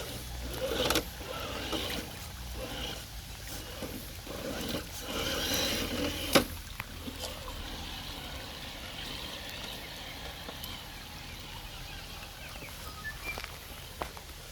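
Traxxas TRX-4 Sport RC crawler driving over rough ground: its electric motor runs low and steady while the truck knocks and scrapes over the terrain, with a sharp knock about six seconds in.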